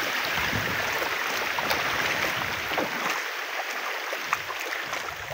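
Shallow seawater splashing and sloshing around the legs of two people wading through it. It makes a steady watery hiss with a few small splashes.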